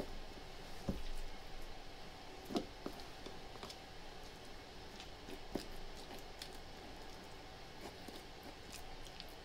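Pieces of raw chicken being packed by hand into glass canning jars: scattered small clicks and knocks of the jars and handling, with a low thump about a second in.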